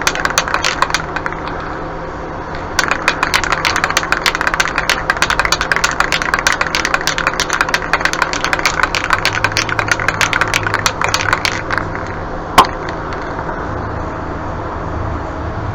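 Aerosol spray paint can being shaken hard, its mixing ball rattling in rapid clicks. The rattle pauses briefly about a second in, then runs on for about nine more seconds before stopping, followed by one sharp click.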